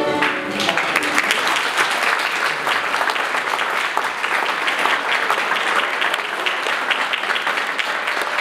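An accordion chord breaks off at the very start, and an audience applauds steadily, a dense patter of many hands clapping.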